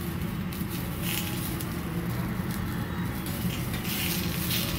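Greens sizzling on a teppanyaki iron griddle while a metal spatula scrapes and turns them, with a few short scrapes standing out over a steady low hum.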